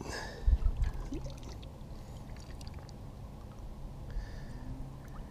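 Reservoir water lapping and trickling against shoreline rock, with a few low thumps about half a second in.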